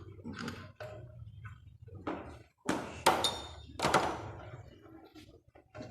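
Several separate metal clanks and knocks, the two loudest about three and four seconds in, one leaving a short high ringing ping: hand tools and engine parts being handled during an engine teardown.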